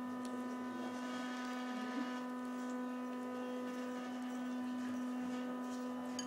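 A steady hum at one unchanging pitch with many even overtones, with a few faint clicks.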